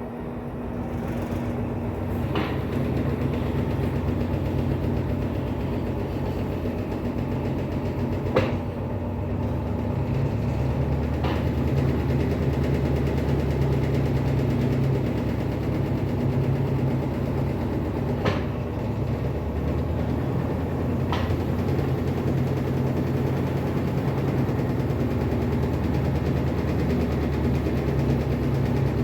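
Electrolux Turbo Economia 15 kg (LTD15) top-load washing machine running its wash cycle: a steady motor hum, with a few sharp knocks scattered through it.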